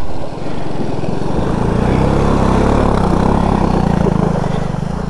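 Single-cylinder adventure motorcycle engine running at a steady throttle as the bike rides through a shallow river crossing, with water splashing and spraying off the tyres. The engine swells a little about two seconds in.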